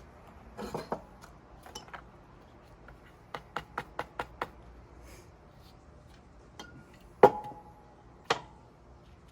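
Metal spray paint cans being handled: a quick run of about six rattling clicks, then a loud metallic clink that rings briefly, and one more clink about a second later.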